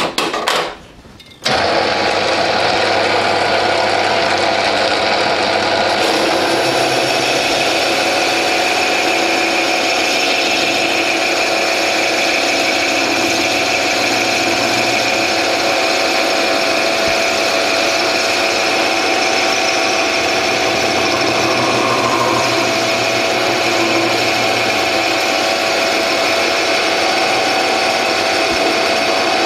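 A brief clatter, then a metal lathe's spindle drive starts and runs steadily. About six seconds in, a higher hiss joins as a carbide-tipped parting blade in a rear toolpost cuts into a spinning stainless steel bar. The parting cut runs smoothly and quietly, without squealing or chatter.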